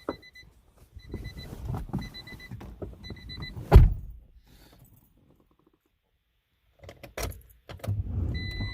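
A car's warning chime beeps repeatedly with keys and movement, then a car door shuts with a thump about four seconds in. After a quiet pause and a few key clicks, the third-generation Acura Integra's four-cylinder engine starts near the end on a cold start, catching quickly with no long crank: the new ECT sensor has cured its hard starting.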